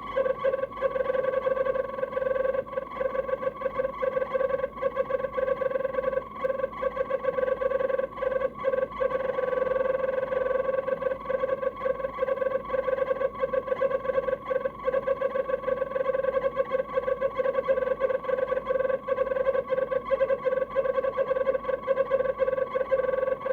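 Fridge-compartment fan motor of an LG DIOS Objet Collection refrigerator (M872GBB252) giving a steady, high-pitched whine that keeps stuttering with brief dropouts. The sound is the sign of a failing fan motor.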